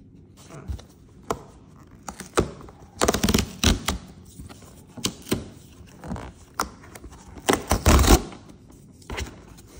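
Perforated tear strip of a paperboard box being pulled open by hand: the cardboard rips along the perforations in a series of short rips and snaps, loudest near the end.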